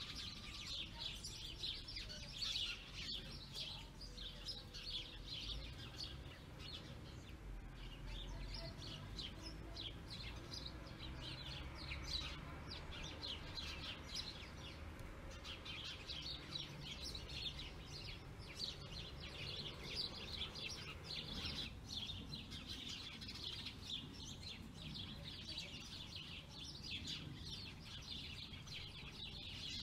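A dense, continuous chorus of songbirds chirping and twittering, many short high calls overlapping, over a faint low background rumble.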